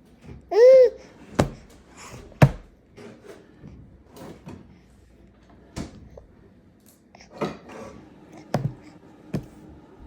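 Baby giving one short, high squeal that rises and falls in pitch, about half a second in, followed by a few sharp knocks and clicks and small breathy sounds.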